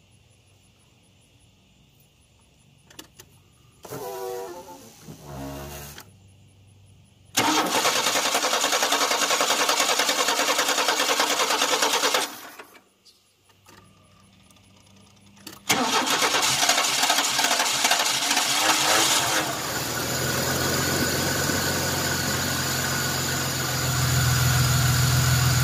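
Chevrolet 4.3 V6 with new CPI spider injectors being cranked by the starter twice, the first time for about five seconds without starting. On the second try it catches and settles into a steady idle, getting louder near the end. It is the engine's first start after three years of sitting.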